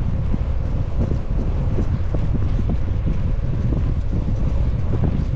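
Wind rushing over the microphone of a cyclist riding downhill: a loud, steady low rumble.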